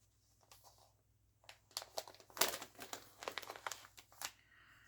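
Clear plastic stamp-set packaging and binder sleeves crinkling as they are handled and turned: a run of quick crackles beginning about a second and a half in.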